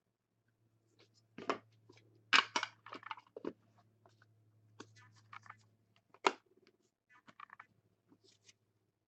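Crinkling and clicking of a foil trading-card pack and cards being handled, in a scatter of short, sharp sounds that are loudest about two and a half seconds in and again about six seconds in.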